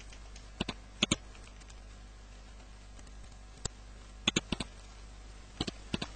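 Computer keyboard and mouse clicks, in short clusters of two to four, as numbers are typed into spreadsheet cells.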